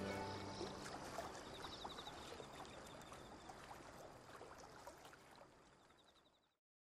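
Background music ending about half a second in. It leaves a faint noise with light crackles that fades away to silence.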